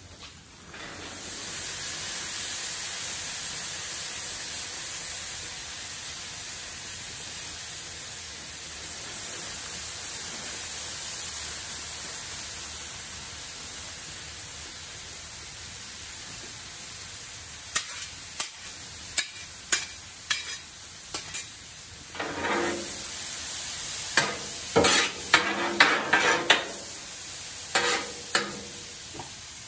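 Chopped cauliflower frying on a steel Blackstone flat-top griddle, a steady sizzle that starts about a second in. In the second half, metal spatulas tap and scrape on the griddle plate with a run of sharp clicks and clatter as the cauliflower and corn are turned.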